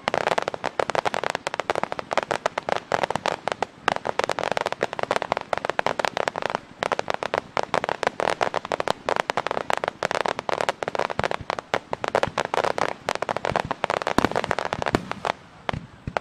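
Dense, continuous crackling of a fireworks display, from a row of ground fountain fireworks spraying crackling sparks. The crackle thins out near the end.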